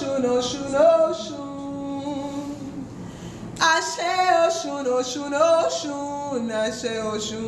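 A woman singing a Yoruba chant to the orishas unaccompanied, in long held, wavering notes. She sings softer for a couple of seconds, then comes back strongly about three and a half seconds in.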